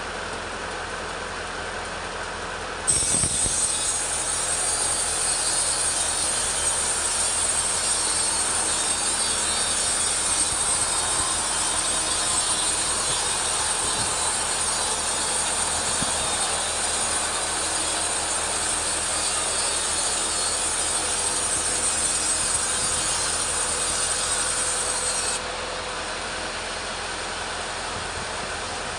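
Petrol chainsaw idling, then opened up to full throttle about three seconds in and held there for some twenty seconds while ripping teak lengthwise, then dropping back to idle near the end.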